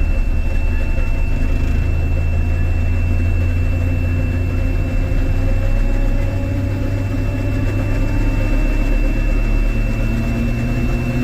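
Combine harvester running with its separator and feeder engaged, heard from inside the cab: a steady low engine drone with a thin, steady high tone over it and a fainter whine that rises slowly in pitch.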